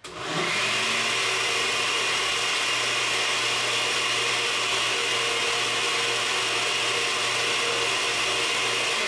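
Countertop blender running on its liquefy setting, blending boiled sea moss into a thick liquid. The motor spins up over the first half second, then runs steadily.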